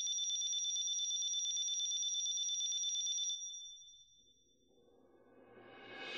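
A high electronic ringing tone, a rapid two-note trill like a telephone ring, holding steady for about three seconds and then fading away. Soft music fades in near the end.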